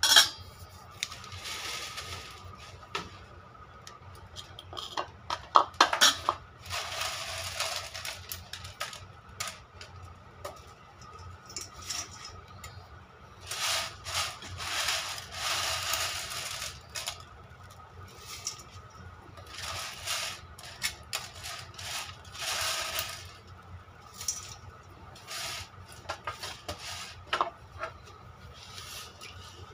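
Kitchen handling sounds at a metal pot as dry noodles are added to broth: a sharp clank at the start, clicks of utensils on the pot, and repeated rustling and scraping as the noodles are dropped in and moved about.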